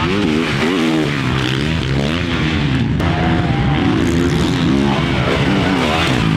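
450cc motocross bikes' four-stroke engines revving hard on track, the pitch climbing and dropping again and again as riders accelerate, shift and jump.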